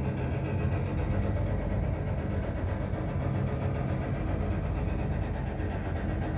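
Sand dredger's engine and slurry pump running steadily with a low drone, over a steady rushing as the pump discharges sand and water through its pipe into a hopper barge's hold.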